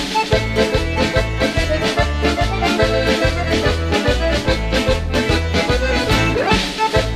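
Instrumental background music with a steady, regular bass beat.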